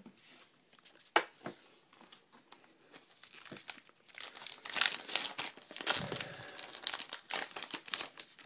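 A trading-card pack wrapper being torn open and crinkled, busiest in the second half, with one sharp tap about a second in.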